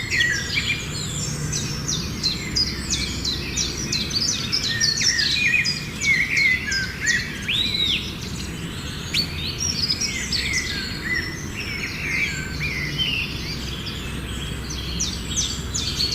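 Aviary birds in a dense chorus: many quick, high chirps and short calls overlapping without pause, over a low steady rumble.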